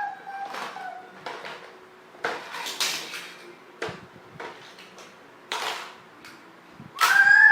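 Hard plastic toys knocking and clattering as they are handled, a series of separate clicks and knocks.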